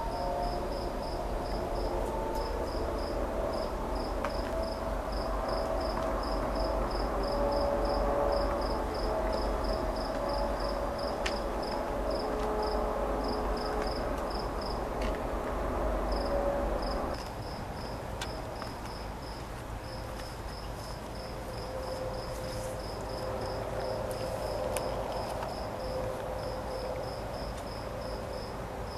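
Crickets chirping steadily at night, a few chirps a second, over a low rumble of background noise that drops away suddenly about seventeen seconds in.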